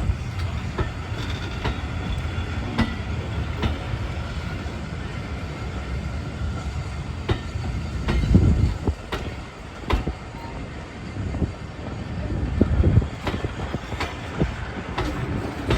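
Train running on the track: a steady low rumble with irregular clicks and knocks.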